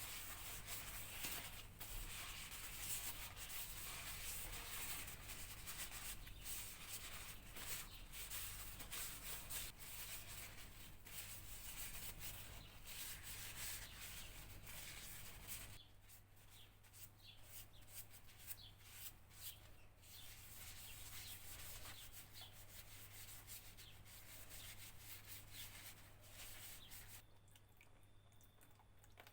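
Abrasive rubbing by hand on a part of an old, rusty breast drill: a continuous scratchy scrubbing made of many quick strokes. It gets lighter about halfway through, picks up again, and stops a couple of seconds before the end. A steady low hum runs underneath.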